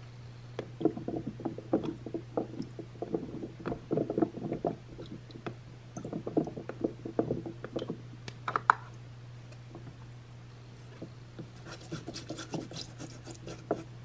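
Baby carrots pushed around by hand in water in a plastic toy sink basin: a string of irregular knocks and small splashes against the plastic. About twelve seconds in, a plastic-bristled scrub brush scrubbing a carrot gives a fine, rapid scratching. A steady low hum runs underneath.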